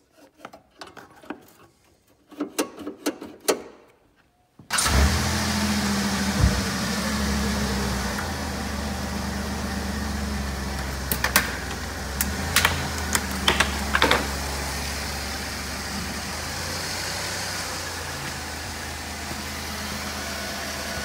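A few light knocks, then about five seconds in the 2005 Chrysler Town and Country minivan's engine starts and settles into a steady idle, run to check the newly fitted radiator for leaks. A few sharp clicks sound over the idle in the middle.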